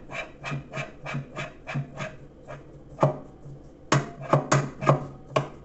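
Light knocks and taps on the parts of a top-loading washing machine being refitted: quick clicks about three a second at first, then a single louder knock and a run of five louder knocks near the end.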